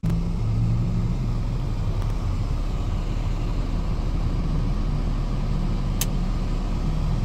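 Steady rumble of a car on the move, road and engine noise with no change in speed.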